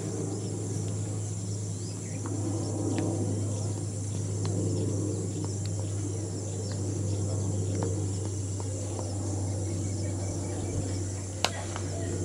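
Insects chirring steadily over a low steady hum, with one sharp crack near the end as a cricket bat strikes the ball.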